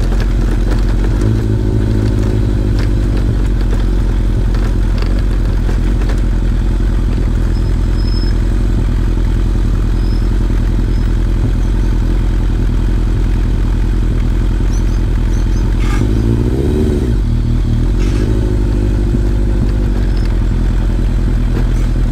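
Kawasaki ZRX1100's inline-four engine running steadily at low revs as the motorcycle rides slowly up a steep road, with a brief rise and fall in revs about sixteen seconds in and a few light knocks.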